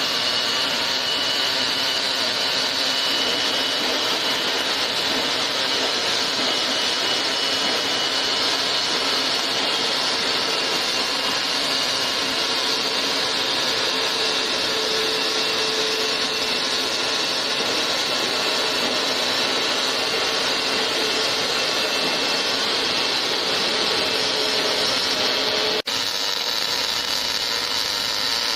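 Automatic MIG welding torch running a continuous arc along a longitudinal seam: a steady, dense hiss and crackle, with a brief dropout about 26 seconds in.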